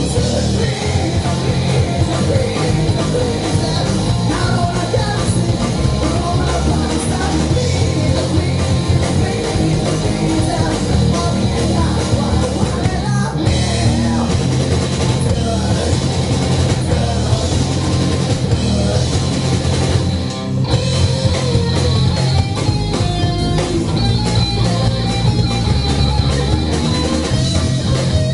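Live rock band playing: electric guitar, bass and drum kit, with a man singing at times. The band cuts out together for two brief breaks, about halfway through and again about two-thirds of the way in.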